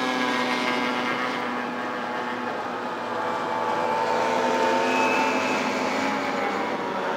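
Outboard motors of several small racing hydroplanes running at speed as they pass, a steady high engine whine of more than one motor at once. The pitch drifts slightly up and back down and is loudest around the middle.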